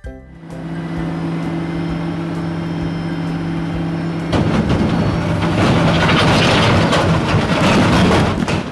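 Dump truck engine running with a steady, even hum. About four seconds in it suddenly turns louder and rougher and stays that way.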